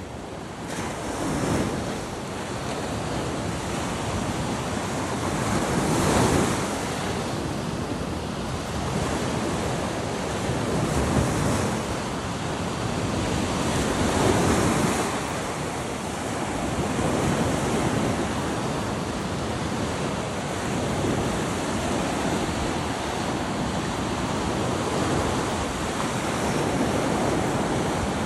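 Sea waves breaking on the shore, the surf swelling and ebbing every few seconds, with wind buffeting the microphone.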